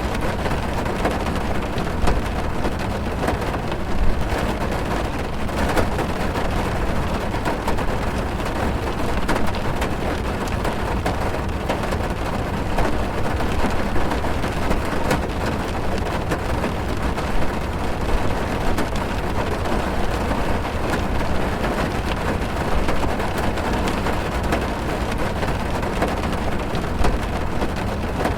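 Steady rain falling on a car's roof and windows, heard from inside the cabin: an even hiss over a deep low rumble, with a few louder drops standing out now and then.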